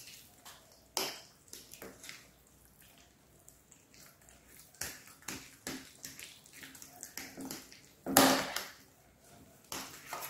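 A metal fork stirring and mashing soft mashed potato in a ceramic bowl: scattered short wet scrapes and light clicks of the fork against the bowl, with one louder stroke about eight seconds in.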